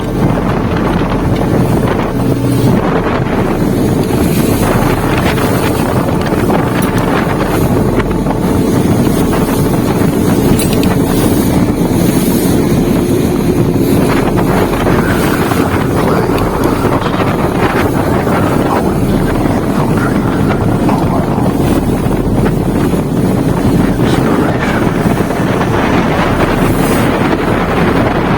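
Motorboat running under way at a steady pace, with heavy wind buffeting the microphone.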